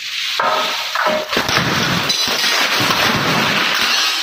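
Tempered glass partition shattering under a hammer blow about half a second in, then a continuous crackle and tinkle of small glass fragments crumbling out of the frame and raining onto the floor.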